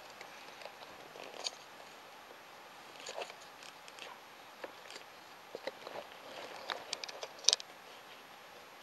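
Faint handling noise of a large steel wristwatch with a leather strap being turned over in the hands: scattered small clicks, taps and rustles, the loudest click about seven and a half seconds in.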